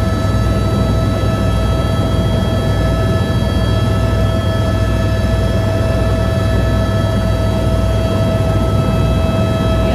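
Helicopter in flight heard from inside the cabin: a steady low rotor and engine drone with a constant high whine over it.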